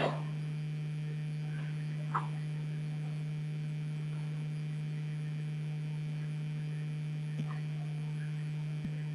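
Steady low electrical hum, with a few faint, brief ticks about two and seven seconds in.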